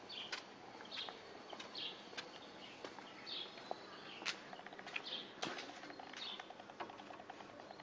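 Small birds chirping, short high chirps about once a second, with a few sharp knocks and a brief fast ticking rattle near the end.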